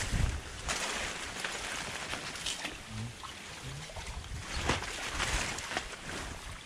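Water splashing and sloshing in irregular bursts as a drag net is hauled through the shallow water of a flooded field.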